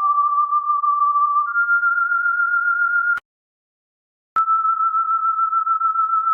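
Electronic sine-like tones around a thousand hertz, holding one pitch and then stepping to another, with a slightly wavering loudness. About three seconds in, the tone cuts off with a click, and after about a second of silence it resumes with another click on a new steady pitch.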